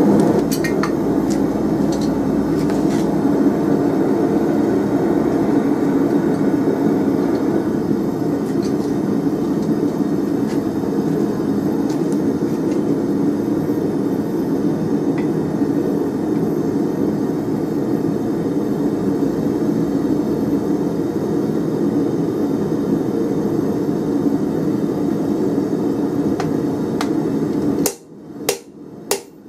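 A loud, steady mechanical drone with a few light metal clicks in the first seconds, which cuts off suddenly near the end. Then a hand hammer strikes red-hot round steel held in a spring fuller on the anvil, two ringing blows.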